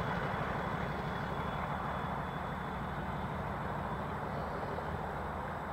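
A pair of Class 37 diesel locomotives, their English Electric V12 engines working hard as they pull away with a heavy train, the engine sound slowly fading as they draw away.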